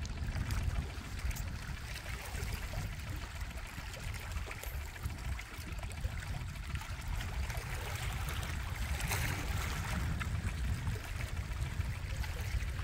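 Small waves lapping and trickling among the shoreline rocks, under a steady low rumble of wind on the microphone.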